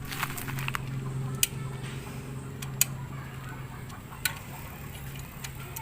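Scattered sharp metallic clicks of an allen wrench working on a motorcycle exhaust's bolts: a quick cluster at the start, then single clicks every second or so, over a steady low hum.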